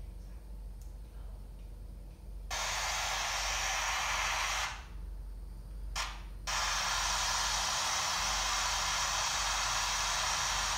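Spirit box sweeping through radio channels, giving a loud steady static hiss that starts about two and a half seconds in, cuts out for under two seconds with one short burst in the gap, then comes back.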